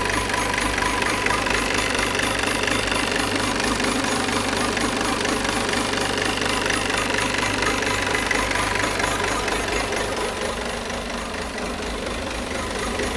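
Peugeot 508's 2.0 BlueHDi 180 hp four-cylinder diesel engine running steadily at idle, with the strange noise at idle that its owner is asking about.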